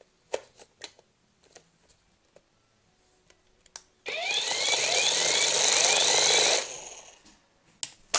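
Small electric motor of a flying propeller alarm clock whirring loudly for about two and a half seconds as it spins the propeller up and launches it, then fading. Light clicks of handling the clock come before it, and a couple of sharp clacks near the end.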